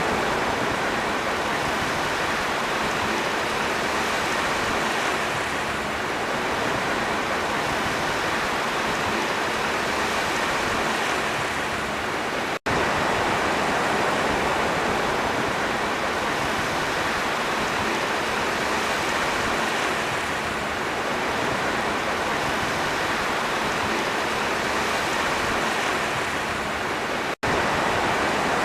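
Sea waves washing continuously as a steady, dense rush of surf with only gentle swells. The sound cuts out for an instant twice, once about halfway through and once near the end.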